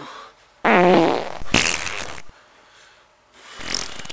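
Loud comic fart sound effect: a long buzzing blast starting just under a second in and breaking up into a rougher tail, then a shorter one near the end.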